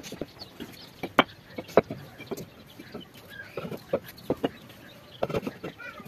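Bricks knocking against each other and on the concrete floor as they are picked up and stacked dry, a handful of sharp clacks with the two loudest just over a second and just under two seconds in. Chickens call faintly in the background.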